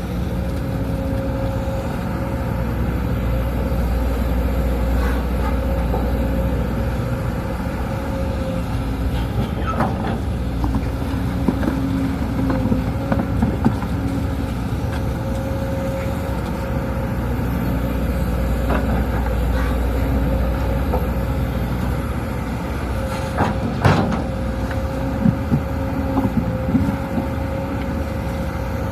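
Sumitomo SH210 hydraulic excavator running under load: a steady diesel drone with a hydraulic whine that cuts in and out as it works, and a few sharp metallic knocks, the loudest near the middle and about four-fifths of the way through.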